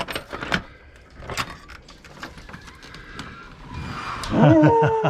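Keys jangling and a door latch clicking and knocking. About four seconds in, a loud, drawn-out vocal sound with falling, wavering pitch begins.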